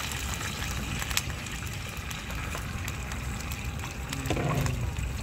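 Onion slices scraped with a wooden spatula off a plastic cutting board into a pan of oil on a portable gas stove, with a sharp click about a second in, over a steady hiss and low rumble.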